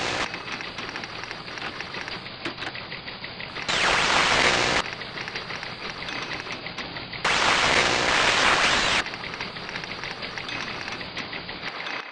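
Crackling, static-like noise with two louder bursts of hiss, one about a third of the way in and a longer one past the middle. It cuts off suddenly near the end.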